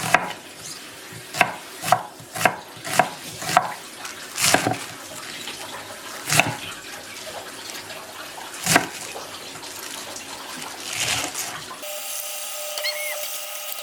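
Tap water running into a sink, broken by a string of sharp knocks and clinks, about a dozen in the first eleven seconds. Near the end it cuts abruptly to a steady hum with a few held tones.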